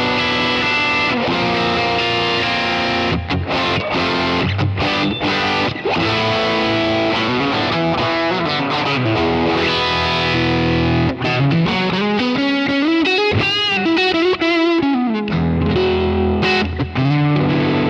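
Electric guitar on the bridge pickup, played through a Kemper Profiler's Fender Deluxe Reverb profile with a Marshall tone stack for a warmer, slightly driven Marshall-like sound. Notes and chords, with the tone knobs being turned during the playing, and past the middle a long glide up in pitch and back down with vibrato.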